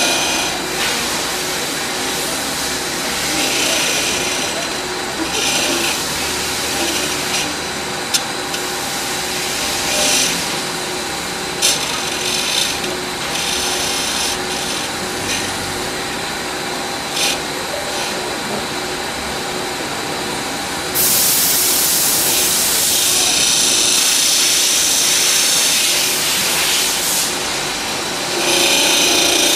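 DL 300 profile knife grinder running, its grinding wheel working a cutter knife with a steady machine hum and hissing grinding noise. The grinding grows much louder about two thirds of the way through and again near the end, with a few sharp ticks in between.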